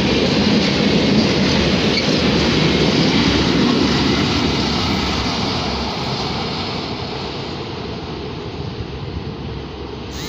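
Freight train of open-top gondola wagons rolling past on the rails, wheels rumbling over the track. Loud at first, it fades steadily from about halfway through as the last wagon passes and the train draws away.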